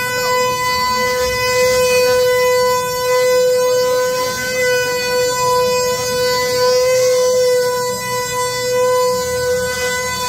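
Wooden ox-cart axle singing: a steady, unbroken drone from the axle turning in its wooden bearings, with fainter wavering tones beneath it.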